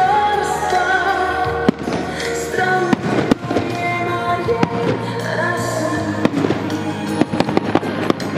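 Aerial fireworks shells bursting with sharp bangs and crackles over music, with a quick run of several bangs in the last couple of seconds.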